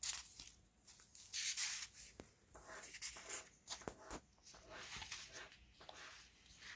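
Paper rustling as the folded paper flaps and strips of a handmade cardboard lapbook are handled and turned, in short irregular scrapes.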